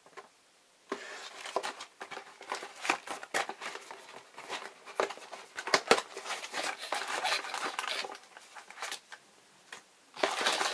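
Cardboard model-kit box and printed paper being handled: a run of taps, scrapes and rustles as they are turned over, with louder, denser rustling starting near the end.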